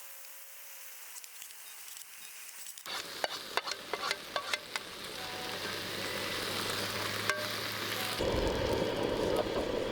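Okonomiyaki batter frying in a pan. The sizzling starts about three seconds in and grows louder toward the end, with a few sharp clicks early in the sizzle.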